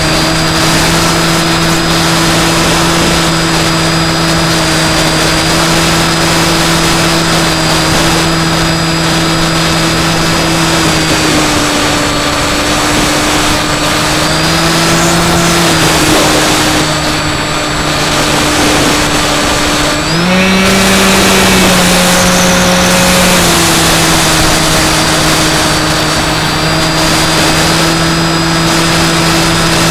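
Onboard sound of a Skywalker X5 model flying wing in flight: its electric motor and propeller give a steady hum over wind rush. The pitch dips slightly about eleven seconds in, rises sharply with more throttle about twenty seconds in, then settles back a few seconds later.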